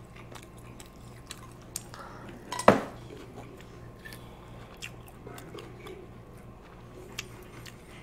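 Cutlery and dishes clinking during a meal: scattered light clicks, with one louder knock a little under three seconds in. A faint steady low hum runs underneath.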